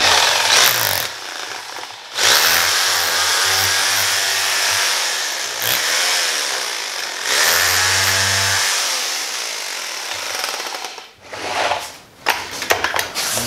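Electric drill with a long twist bit boring into a bowling ball beside its thumb mold, cutting away the ball around the insert to free it. The motor's pitch dips and recovers twice as the bit bites, cuts out briefly near the end, then runs again in short bursts.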